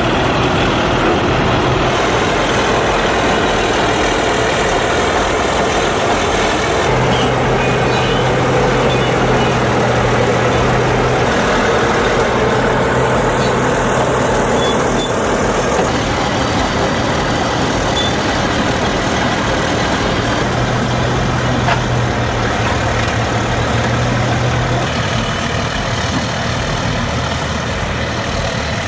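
Heavy earthmoving machinery's large diesel engines working steadily under load. A deeper steady engine note stands out for several seconds about seven seconds in, and again around twenty seconds in.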